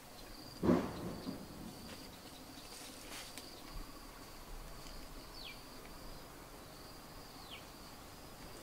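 Insects trilling steadily in a high, thin, unbroken tone. A brief louder sound comes under a second in, and two short falling chirps sound later on.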